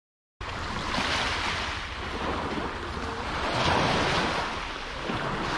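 Small sea waves breaking and washing up a gravelly beach, swelling twice, with wind buffeting the microphone as a low rumble. The sound cuts in abruptly about half a second in.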